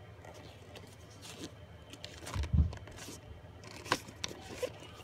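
Handling noise from a VHS tape: the cassette being taken from its cardboard sleeve and turned over in the hand, with rustling and scraping, a dull thump about halfway through, and a few sharp plastic clicks near the end.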